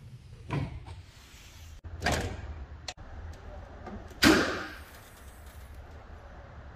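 Mini Cooper bonnet being opened: three short clunks, the release lever pulled inside the cabin and the bonnet latch letting go, then the safety catch at the grille being released as the bonnet is lifted. The last clunk, about four seconds in, is the loudest.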